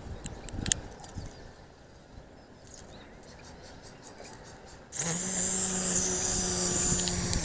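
Small electric motor of a toy mini helicopter starts suddenly about five seconds in and runs steadily with a high whine. Before that come a few light clicks and taps.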